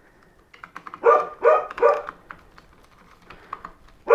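A dog barking: three quick barks about a second in, then one more near the end.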